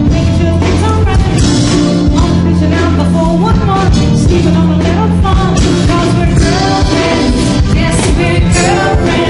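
Live stage band with a drum kit playing, a steady bass line under it, and a woman singing lead into a microphone.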